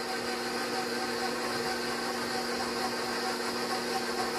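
Electric stand mixer running steadily, its motor humming evenly as it mixes flour and cold water into a wrap dough.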